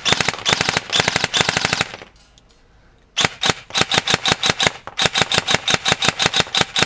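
G&D DTW electric airsoft rifle, a PTW clone, firing a long full-auto burst of about two seconds. After a pause of about a second it fires a steady string of more widely spaced shots, about eight a second.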